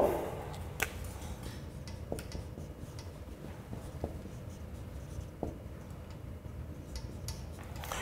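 Dry-erase marker writing on a whiteboard: a few faint, short squeaks and taps of the felt tip, over a steady low room hum.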